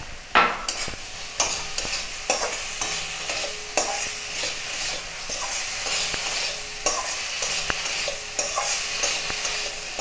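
A spatula stirring and scraping spiced potato pieces around a kadai as they fry in oil: a steady sizzle with irregular scrapes and knocks against the pan, several a second. The spice mix is being fried dry before water goes in.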